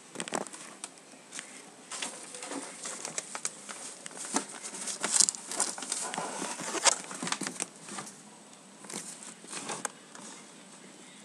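A flock of birds flapping their wings and rustling, heard as irregular clusters of sharp flutters and clicks, busiest in the middle, pausing briefly, then a last flurry near the end.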